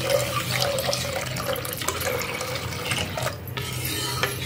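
Water poured in a steady stream from a glass measuring jug into a steel pot of thick tomato and lentil mash, splashing; the pour stops a little after three seconds in. Near the end a steel ladle stirs and knocks against the pot.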